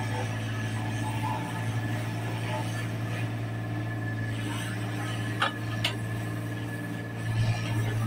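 Hyundai Robex 27Z-9 mini excavator's diesel engine running steadily while its hydraulics work the boom and arm, with a thin steady high whine over the engine note. Two sharp clicks come a little past the middle.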